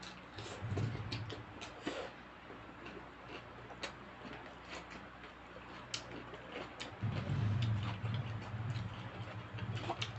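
Eating sounds: irregular small clicks and smacks of utensils against a bowl or plate and of chewing. A low steady hum grows louder about seven seconds in.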